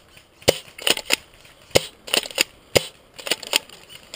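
Dry twigs and branches snapping and crunching while pushing through dense, tangled trees and undergrowth: a string of irregular sharp cracks.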